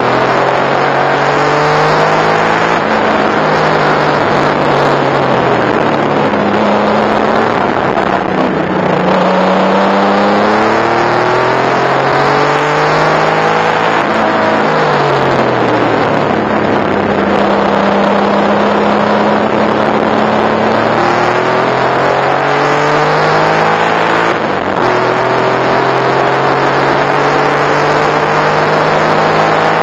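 Porsche 964 Turbo's air-cooled turbocharged flat-six heard from inside the cabin under racing load, the revs climbing and then dropping again and again with gear changes and braking for corners. Steady wind and road noise runs underneath.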